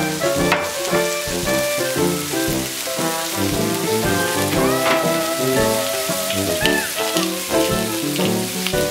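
Sausage and chopped vegetables frying in a nonstick pan with a steady sizzle, under background music with a plain melody.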